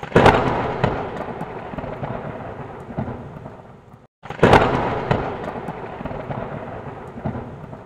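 Two loud rushing rumbles, each starting suddenly and fading away over about four seconds, like thunder, the second following a short break.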